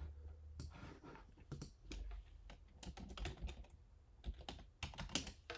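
Computer keyboard being typed on, in an irregular run of short, fairly faint key clicks.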